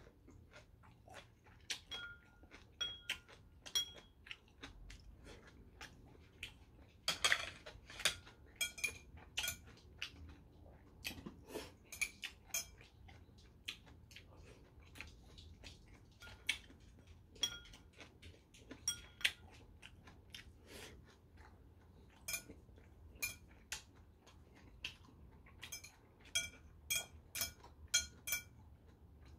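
Metal chopsticks clicking together and tapping ceramic bowls and plates: dozens of short, sharp clinks, many with a brief ring, mixed with chewing. A longer, louder sound comes about seven seconds in.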